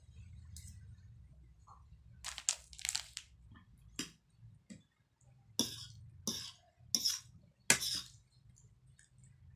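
Metal spoon and fork clinking and scraping against a plate while ramen noodles are stirred and tossed, in a string of sharp, irregular clinks, the loudest in the second half.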